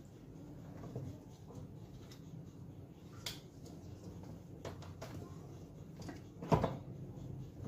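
Kittens playing under a table: a few light taps and scuffs, and one louder knock about six and a half seconds in, over a faint low hum.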